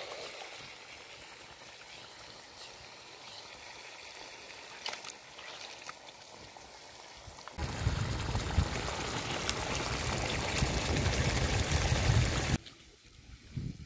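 Mutton frying in a pan with a low, even sizzle. About halfway through, liquid pours into the pan in a loud stream for about five seconds and then stops suddenly.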